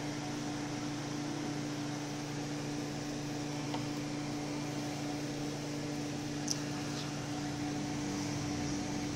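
Steady low hum and hiss of a running fan or kitchen appliance, with a few faint light clicks, as a plastic spoon works ground beef across a metal baking pan.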